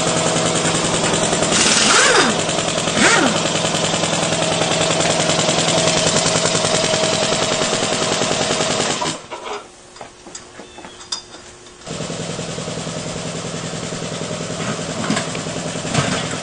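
A motor or engine running steadily with a fast pulsing beat. It drops away for about three seconds near the middle, then resumes, with a few brief squeaks over it.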